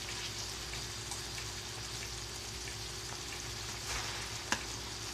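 Sautéed onions scraped with a wooden spatula from an iron skillet into a plastic bowl of gravy: soft wet scraping over a steady hiss, with a sharp tap about four and a half seconds in.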